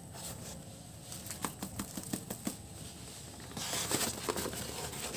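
Stiff paper wrapping of a firecracker handled and unrolled by gloved hands: scattered light taps and clicks, then a louder burst of paper rustling and crinkling about three and a half seconds in.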